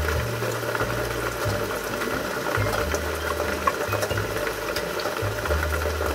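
Heavy rain falling steadily, a constant hiss with faint scattered drop ticks, over a low stepping bass line of background music.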